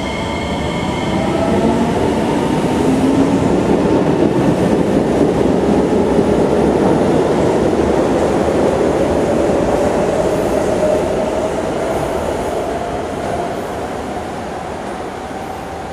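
SMRT C751B metro train pulling out of the station: wheel and motor rumble builds over the first few seconds as it accelerates, with a motor whine rising in pitch, then dies away as the train draws off near the end.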